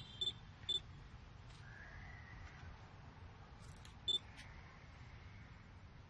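Pet monkey making a few short, high squeaks over a low steady hum: two near the start and a small cluster about four seconds in.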